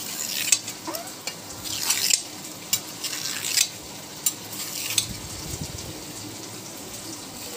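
A kitchen knife cutting through soft set colostrum-milk barfi in a steel plate, the blade scraping along the metal in a few short strokes, with sharp ticks as it touches the plate.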